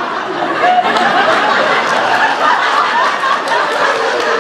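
Audience of many people laughing and chattering together in a room, without one voice standing out.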